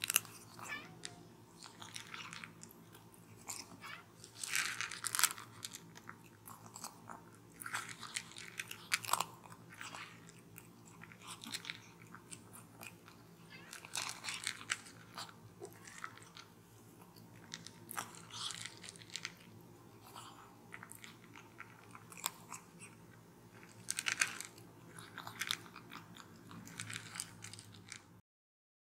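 Kitten crunching dry kibble from a plastic bowl, in irregular bursts of chewing. The sound cuts off suddenly near the end.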